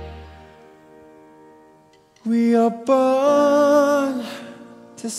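Music from a live stage musical: a held chord dies away over the first two seconds, then a new phrase enters with long held notes that waver slightly and fade toward the end.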